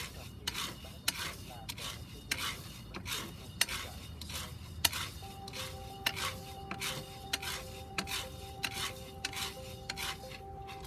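Coffee beans rattling and scraping against a cast-iron pot as they are stirred with a wooden spatula during roasting, in repeated strokes about twice a second.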